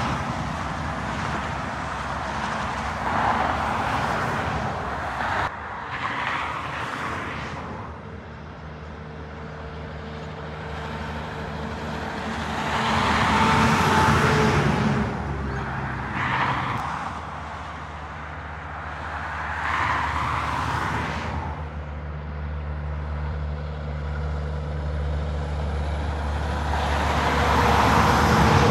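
Motorway traffic including heavy semi-trailer trucks passing one after another: tyre and engine noise swells and fades with each pass, about six passes. From about halfway through, a heavy truck's diesel engine drones steadily underneath.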